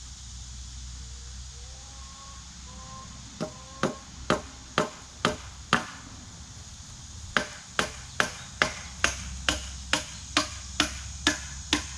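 Hammer driving nails through boards into oak posts: two runs of steady blows, about six and then about eleven, a little over two a second, with a short pause between them.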